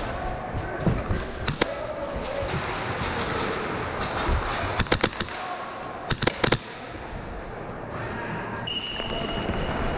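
Airsoft gunfire: a single sharp shot about a second and a half in, then two quick bursts of three shots around the middle, over the constant noisy din of the field. A short steady high tone sounds near the end.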